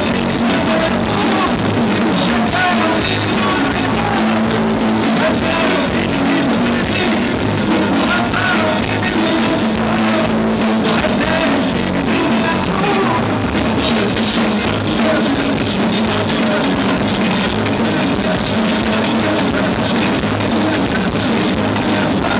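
Live band playing rock music: electric guitars and a drum kit under a male lead singer, loud and steady.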